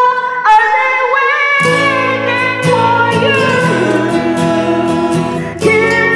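A woman singing a ballad into a handheld karaoke microphone over an instrumental backing track; the low end of the backing drops out at the start and comes back about a second and a half in.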